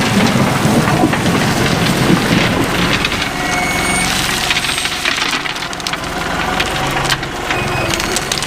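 Crushed rock crunching and rattling as a tractor spreads it into mud holes in a gravel driveway, with the tractor's diesel engine running steadily underneath.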